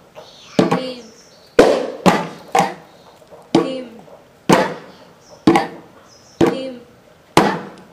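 Laced barrel hand drums of the mridangam type, one head black-spotted, struck by hand in a slow, even pattern: about one stroke a second with a few quick doubles. Each stroke gives a pitched ring that dies away.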